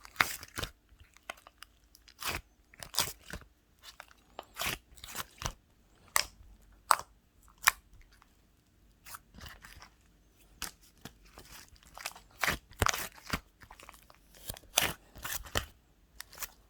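Irregular crisp crunching close to the microphone, coming in clusters of sharp cracks with short pauses between them.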